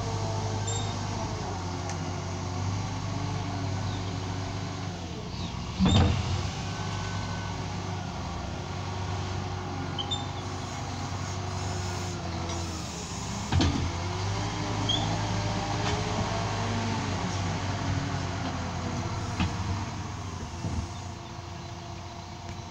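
Liebherr L554 wheel loader's diesel engine running under load, its pitch rising and falling as the machine works, with a whining tone that glides up and down. Two loud knocks stand out, about six and thirteen and a half seconds in.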